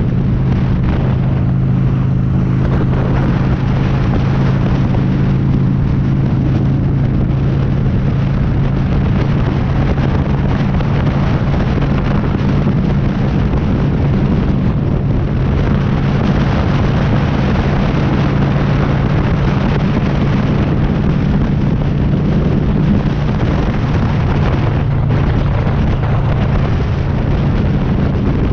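Honda Shadow motorcycle's V-twin engine running at a steady cruising speed, with heavy wind rushing over the microphone.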